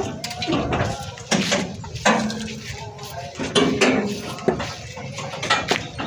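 Irregular sharp clinks and knocks, about eight of them, with snatches of people's voices between them.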